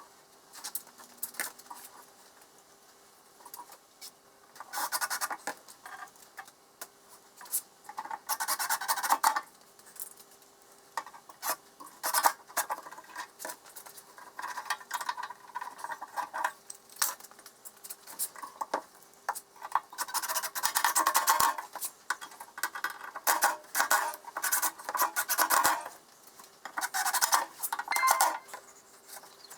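Small hard objects being handled: irregular clinks, rattles and scraping in bursts, with sharp clicks in between.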